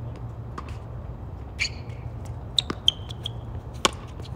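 Tennis ball being struck and bouncing on a hard court: a few sharp knocks, the loudest a forehand hit close by near the end. A steady low hum runs underneath.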